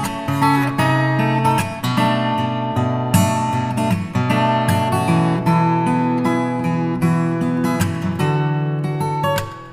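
Background music played on acoustic guitar, with plucked and strummed chords.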